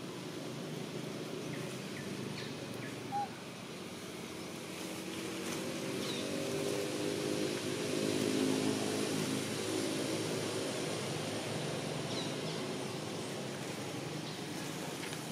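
Outdoor ambience with a distant engine humming, growing louder through the middle and then fading. A few short bird chirps sound over it, one sharp chirp about three seconds in.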